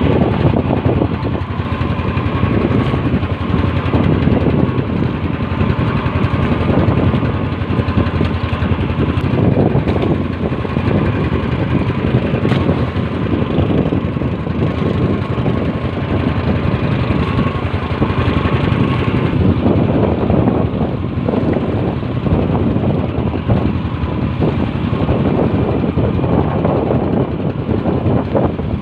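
Outrigger fishing boat's engine running steadily under way, mixed with wind and choppy water splashing against the hull.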